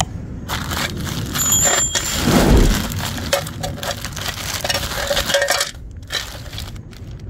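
Plastic mailer bag and clear plastic wrapping crinkling and rustling as a package is handled and opened by hand. A brief high metallic ring comes about a second and a half in, and a dull bump follows about a second later.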